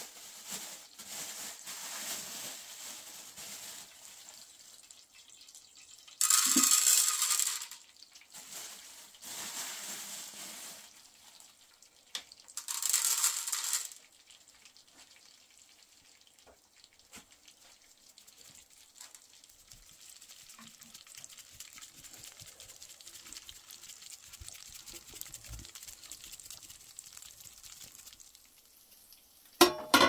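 Oil sizzling in a frying pan on a gas burner as kernels roast, with two loud hissing bursts and then a fainter, steady crackling sizzle. Near the end a metal tray clanks down on the pan as a lid and rings briefly.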